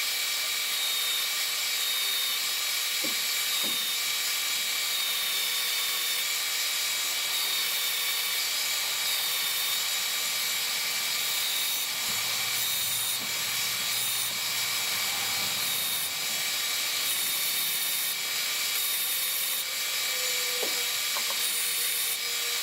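Power sander running steadily with a constant whine and hiss while the side of a small cedar box is sanded flush on it.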